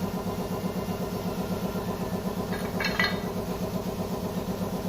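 A small engine idling steadily with an even, rapid pulse. A brief metallic clink rings out about three seconds in.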